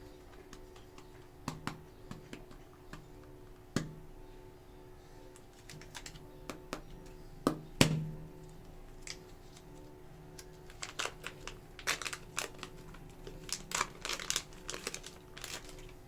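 Plastic clay tubs and packaging handled and opened: scattered sharp taps and clicks, the loudest pair near the middle, then a quick run of clicks and light crinkling in the last few seconds. A steady low hum runs underneath.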